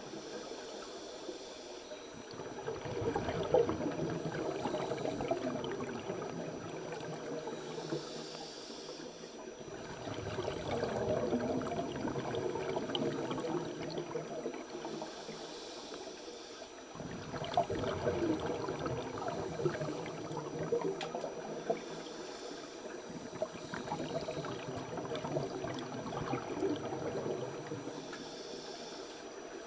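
Scuba regulator breathing heard underwater. A hiss on each inhalation recurs about every six to seven seconds, between longer stretches of bubbling, gurgling exhalation.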